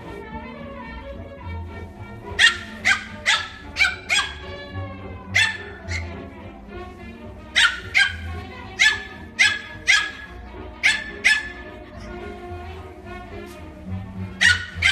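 Pomeranian barking: short, sharp, high-pitched yaps in quick runs of several barks, with pauses between runs, over background music.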